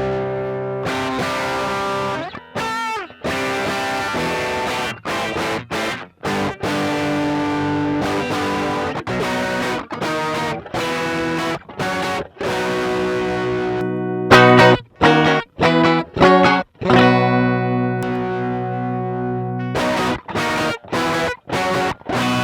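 Electric guitar played through an OCD overdrive pedal, a Fulltone design: distorted chords and riffs broken by short stops, with a bent note about three seconds in. About two-thirds of the way through comes a run of louder, clipped staccato chords.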